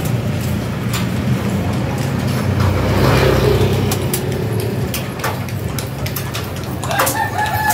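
Street traffic: a vehicle engine running steadily nearby, with another vehicle passing about three seconds in. A few light clicks sound over it.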